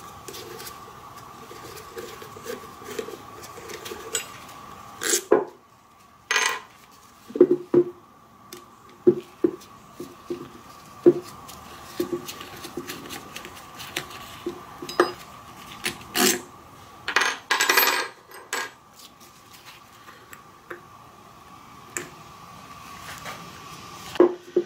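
A 4 mm Allen key working the cap screws out of an EGR valve, with scattered metallic clicks and clinks as the steel screws are set down on a wooden bench and the metal parts are handled. A faint steady high tone runs underneath.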